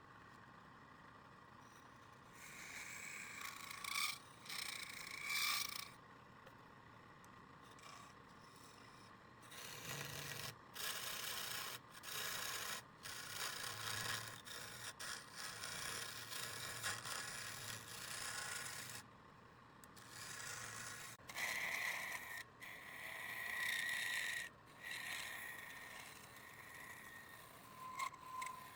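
Wood spinning on a lathe being scraped in repeated passes that start and stop every second or few, some passes carrying a faint high whistle.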